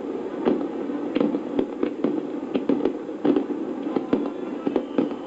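Fireworks bursting in an irregular rapid series of bangs, several a second, over a continuous rumble of overlapping explosions.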